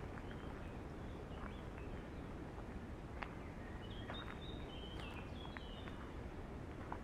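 Steady wind rushing through the woodland trees and on the microphone, with birds singing short, high notes that cluster about halfway through. A few soft clicks of footsteps on the woodland path.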